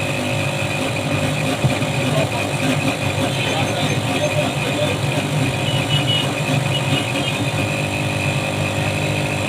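Steady engine-like hum with a thin constant high whine above it.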